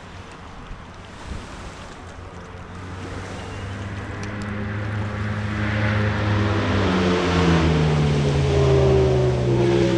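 Motorboat engine approaching and going by, growing steadily louder over a background rush, its pitch sliding down as it passes.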